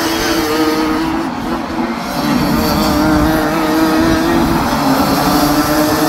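A pack of Rotax Max 125cc two-stroke racing karts running through a corner, several engines buzzing together. The sound dips briefly about a second in, then grows louder as more karts come through.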